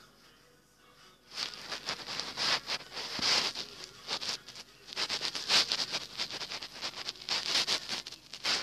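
Rapid scratching strokes of a drawing tool on paper, in two runs: they start about a second and a half in and pause briefly near the middle.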